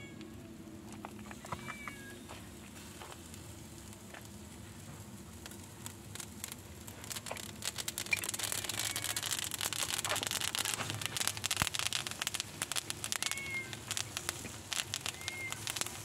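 Chicken cooking on a charcoal grill, crackling and sizzling, with the crackle growing louder and denser about halfway through. A cat meows a few times, short calls.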